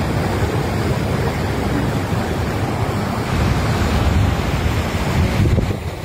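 Swollen river in flood rushing under a footbridge: a steady, loud wash of water noise that dips briefly just before the end.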